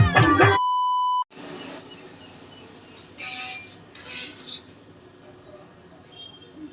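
A steady electronic beep tone, about half a second long, cuts off the loud intro. It is followed by faint background noise with two brief louder noises.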